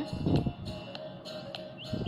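Background music: a held note with short, high, chirp-like notes over it and a light regular tick. A short low thud sounds about a third of a second in.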